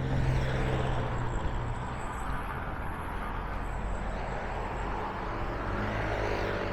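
Street traffic: a motor vehicle's engine running close by, its low hum strongest in about the first second, over steady road noise.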